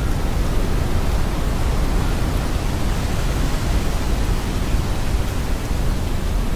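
Hurricane wind blowing steadily and buffeting the microphone, a heavy low rumble under an even rushing noise.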